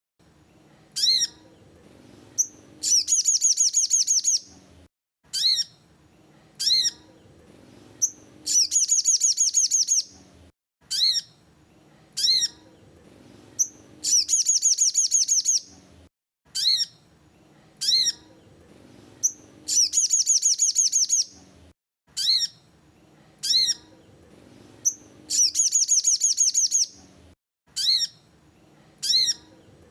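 A bird known in Indonesia as the sogon calling: a few sharp, single descending notes, then a rapid trill of quickly repeated notes lasting about a second and a half. The same pattern repeats about every five and a half seconds, over a faint low hum.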